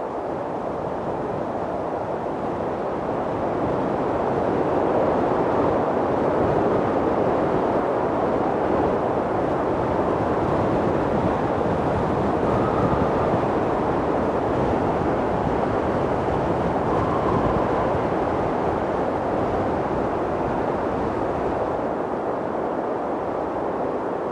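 Strong mountain wind blowing as a steady rushing noise that swells a few seconds in and eases slightly near the end, with a faint brief howl twice.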